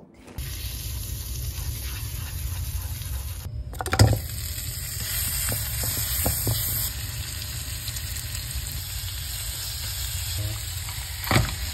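Thin-sliced pork belly sizzling steadily as it fries in oil in a wok while being stirred with wooden chopsticks. A few sharp knocks of the chopsticks and meat against the pan, the loudest about four seconds in.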